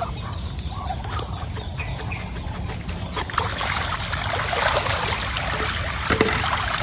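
A flock of farm ducks calling, many short overlapping quacks over a steady low rumble, growing denser about three seconds in.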